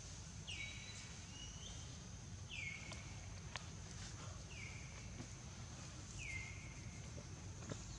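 A high animal call, sliding down and then held briefly, repeated four times about two seconds apart over a steady high hum.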